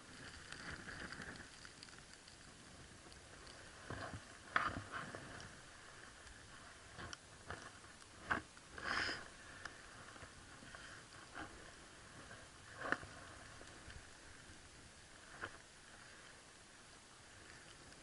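Scattered faint knocks, taps and scrapes of ice-climbing gear against a frozen waterfall, about half a dozen sharper ones among them, with a longer scrape about nine seconds in.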